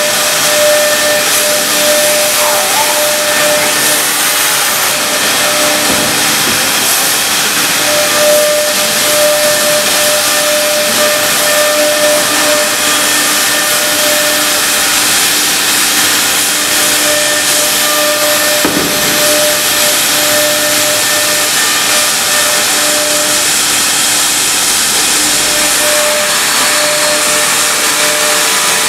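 CNC router machinery running, a loud steady rushing hiss, with a steady hum that stops and starts again several times.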